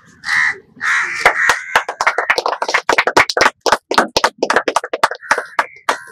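A small group of people clapping, scattered claps from about a second in until about five seconds in, with crows cawing at the start and near the end.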